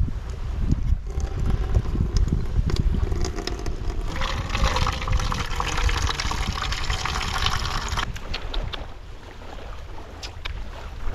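Water pouring from a plastic jerrycan into a plastic bowl. The full pour runs from about four seconds in and cuts off suddenly about four seconds later.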